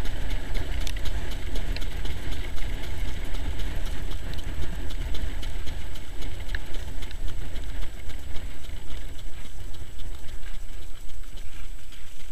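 Wind buffeting the microphone of a camera riding on a sulky, over the hoofbeats of a trotting harness horse and the sulky rolling on the track.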